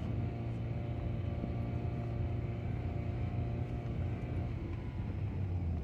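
Car driving at low speed, heard from inside the cabin: a steady low hum of engine and tyres on the road.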